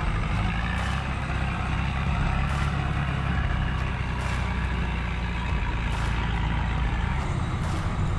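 Heavy machine's engine running steadily with a deep drone, and a faint sharp tick repeating about every second and a half.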